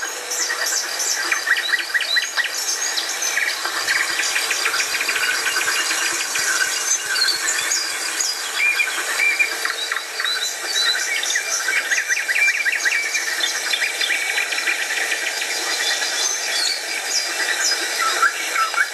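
Chorus of many songbirds singing at once, with short chirps and rapid trills overlapping throughout.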